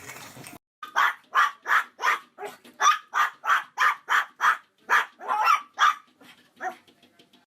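A dog barking in a steady run of short barks, about three a second, that grow fainter near the end.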